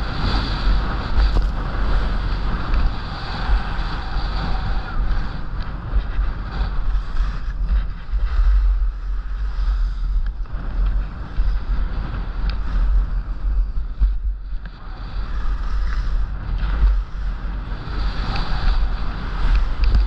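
Wind buffeting the microphone as the skier runs downhill, with a low rumble throughout, and the hiss and scrape of HEAD skis on firm groomed snow rising and falling through the turns.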